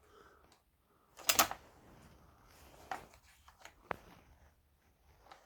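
Tools and chainsaw parts being handled on a workbench: a short clatter about a second in, then a few scattered sharp clicks.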